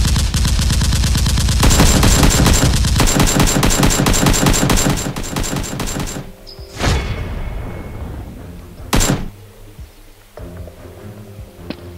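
Rapid machine-gun fire sound effects dubbed over a Nerf blaster fight, a dense burst that stops about five seconds in, followed by two single sharp bangs about two seconds apart.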